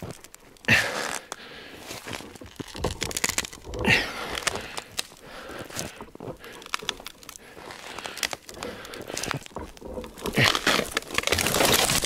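A partly sawn-through tree being pushed over by hand: a couple of sharp cracks from the trunk, then from about ten seconds in a long crash as the tree falls, branches snapping and snow pouring down.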